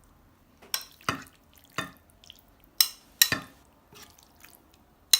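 Chicken pieces being dropped into and stirred through a thick egg-and-cornflour marinade in a bowl: six separate wet squelching strokes, a couple with a light clink.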